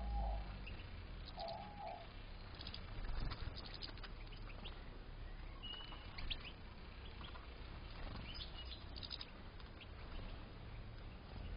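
European goldfinches in an aviary giving scattered short, high chirps and calls, in small clusters. Two low hooting notes sound in the first second and a half.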